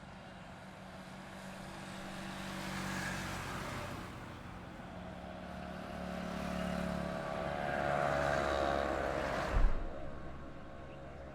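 Highway traffic passing: one vehicle goes by about three seconds in, then a louder one with a steady engine note passes near the end, ending in a brief sharp thump before it fades.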